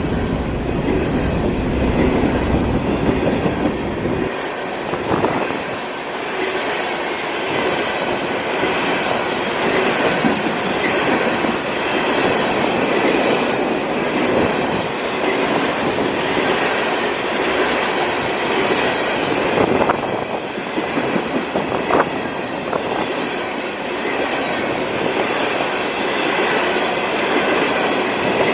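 CSX coal train's hopper cars rolling past, a steady heavy clatter of wheels over the rails with a faint thin wheel squeal. A deep low rumble drops away about four seconds in.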